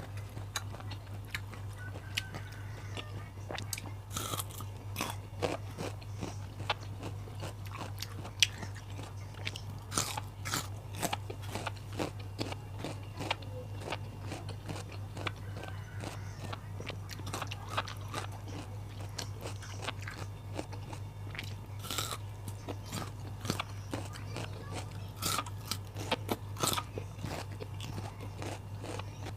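Close-up crunching and chewing of raw vegetables, with sharp crisp bites scattered throughout, over a steady low hum.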